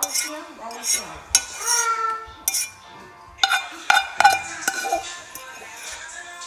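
A utensil scraping and knocking against a metal cooking pot as cooked noodles are scraped out, with several sharp clinks and knocks between about one and five seconds in.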